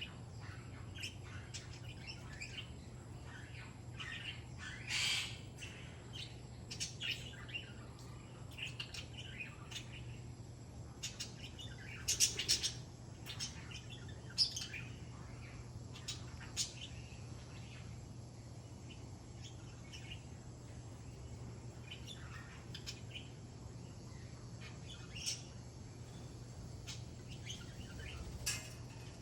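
African grey parrot making scattered short chirps, clicks and squeaks, with a louder burst of calls about twelve seconds in; these are the soft sounds of the parrot asking for a head scratch.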